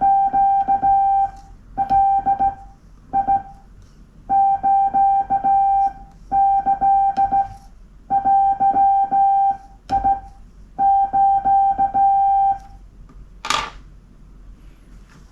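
Morse code sent by hand on a straight key: a steady mid-pitched sidetone beep keyed on and off in dots and dashes, grouped into characters with short pauses, and the key clicking at the edges of the tones. The keying stops near the end, and a short rustling noise follows.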